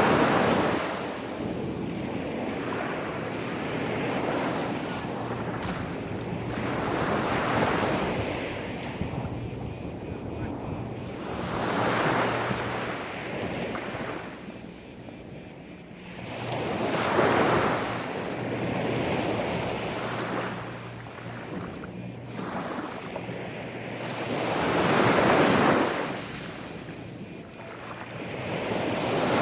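Gentle sea waves washing onto a sandy beach, each wave swelling and fading again about every four to five seconds.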